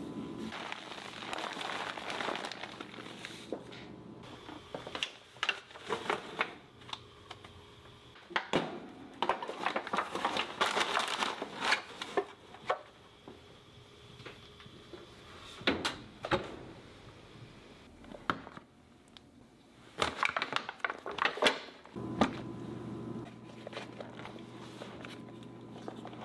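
Paper wrapping and a disposable aluminium foil pan crinkling and rustling as they are handled, with scattered sharp clicks and knocks.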